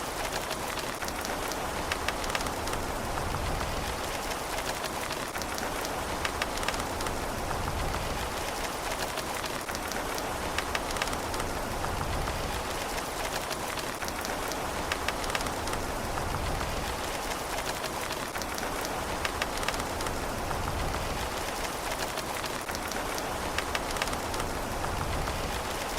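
Steady rain falling on a surface, a constant hiss dotted with many sharp individual drop impacts, without thunder.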